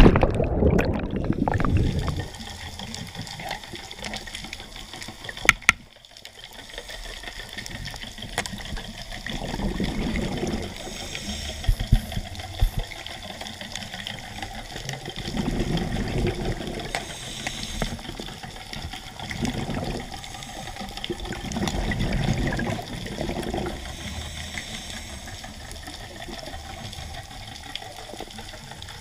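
A loud rush of bubbles as a diver enters the sea, heard underwater through a camera housing. It settles into underwater hiss, with rushes of exhaled scuba regulator bubbles that come back about every six seconds and a couple of sharp clicks.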